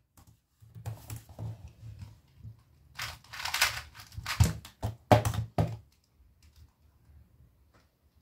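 A plastic 2x2 speed cube being scrambled, its layers turned in short bursts of clicking, with a few sharp knocks about four and five seconds in.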